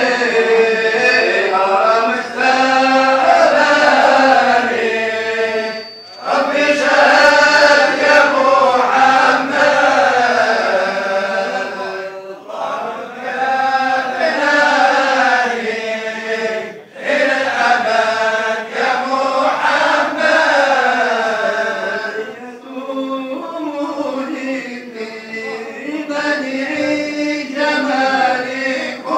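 Group of men chanting Sufi dhikr together in long melodic phrases, with a short breath break about every five seconds.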